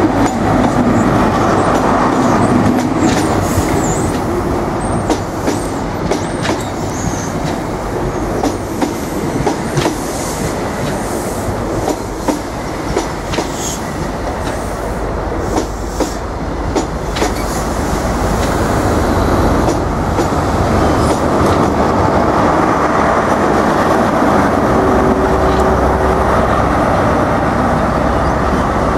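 Network Rail's New Measurement Train, a yellow High Speed Train with Class 43 diesel power cars, running past close by: a steady rumble with the wheels clicking sharply over rail joints as the coaches go by. Near the end the rear power car's diesel engine builds to a louder hum as it passes.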